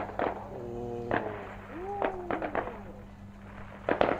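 Aerial fireworks shells bursting at a distance: a string of sharp bangs, a quick cluster of crackles about two and a half seconds in, and the loudest double bang near the end.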